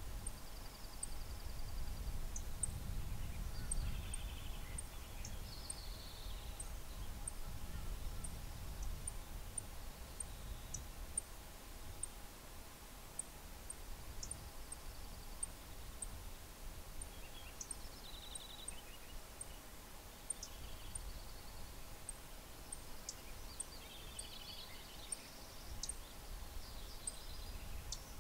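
Small birds singing short, high trills now and then, over a very high ticking call repeated steadily one or two times a second. A low rumble sits underneath, strongest in the first several seconds.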